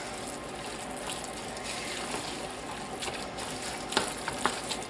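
A spoon stirring a pan of browned ground beef with beans, sour cream and taco seasoning: a steady soft hiss, with a few sharp clicks of the spoon against the pan about four seconds in.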